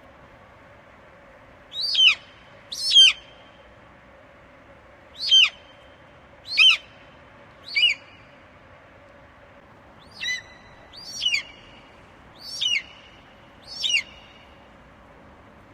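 An eagle calling: about nine short, shrill calls, each sliding sharply down in pitch, given singly or in pairs a second or two apart.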